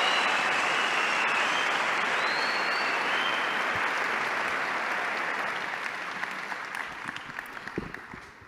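Large audience applauding, with a few whistles near the start, gradually dying away toward the end.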